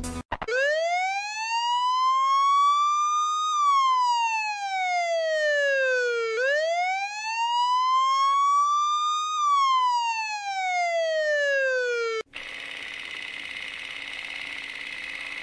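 Siren wailing: a tone that rises slowly and falls back, twice, about six seconds to each cycle. It cuts off abruptly about twelve seconds in, leaving a steady hiss with a faint low hum.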